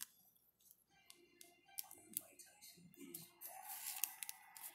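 Faint clicks and scrapes of trading cards being slid and handled in a rigid plastic top loader, a scatter of small sharp ticks.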